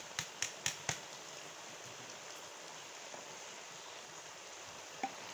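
About five quick taps of a spatula against the cooking pot in the first second, then a steady soft sizzle from the cauliflower, peas and chicken cooking in the pot, with one more tap near the end.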